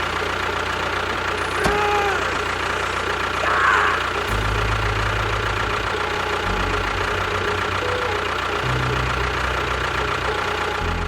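Small tractor-type engine running steadily with a low chugging knock. Its low rumble shifts in steps every couple of seconds.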